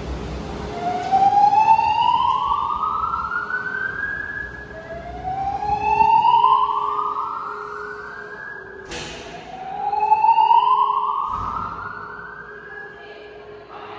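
Fire alarm voice-evacuation speakers sounding a slow whoop evacuation tone: three slow rising sweeps, each about three seconds long, repeating about every four and a half seconds. There is a sharp click about two-thirds of the way through.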